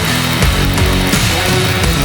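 Loud heavy rock backing music with a steady driving beat.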